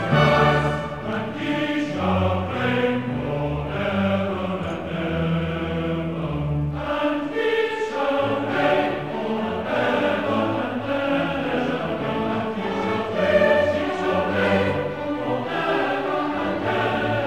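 Large choir singing a classical choral work in sustained, full-voiced phrases, with orchestral accompaniment.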